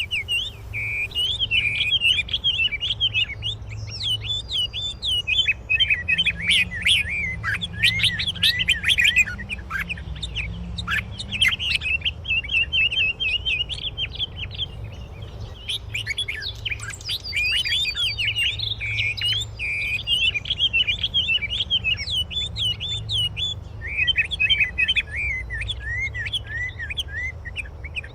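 Songbirds chirping and singing in rapid, varied chirps and trills, almost without pause, with a steady low rumble underneath.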